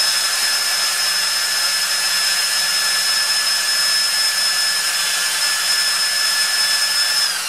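Ryobi cordless drill spinning the magnet rotor of a water-pump motor rebuilt as a generator, running flat out with a steady whine, and stopping abruptly at the end.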